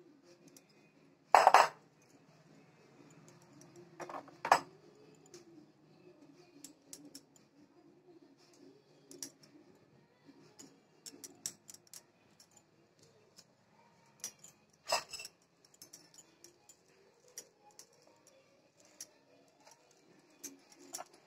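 Glassware clinking: a small glass bowl and spoon knocking against a cut-glass mixing bowl, with a sharp clink about a second in, another around four and a half seconds, and one near fifteen seconds, and light ticks between, over a faint low hum.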